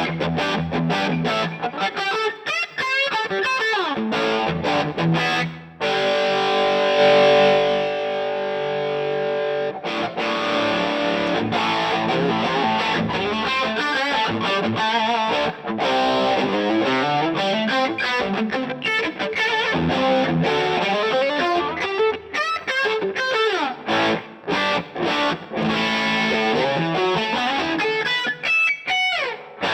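Electric guitar played through a DVII guitar amplifier on a distorted setting: quick runs of picked notes with sliding bends, and a chord left ringing for a few seconds about six seconds in.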